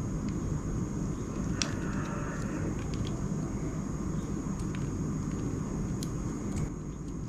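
Steady low rumble of background noise with a thin, high-pitched whine over it, and a few faint clicks of scissors snipping plastic model-kit parts from their sprue.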